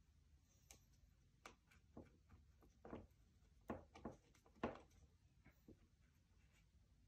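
Near silence, with a scattering of faint, light taps and clicks, two a little louder in the middle.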